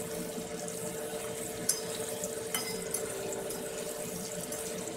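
Cauliflower florets sizzling as they deep-fry in hot oil in an aluminium kadai, with a couple of light clicks of a steel spatula turning them. A steady hum runs underneath.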